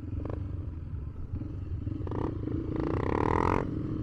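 Motorcycle engine running at low speed while riding, a steady low rumble, with a louder, higher-pitched burst of engine sound about three seconds in.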